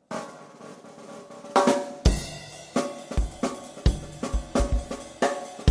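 Music with a drum kit: a quieter sustained opening, then a full beat of bass drum, snare and cymbals that comes in about two seconds in.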